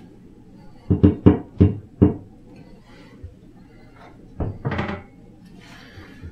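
A quick run of five sharp knocks, then a short rougher clatter a couple of seconds later, as a backdrop-roller wall bracket is knocked against the wall while it is being positioned.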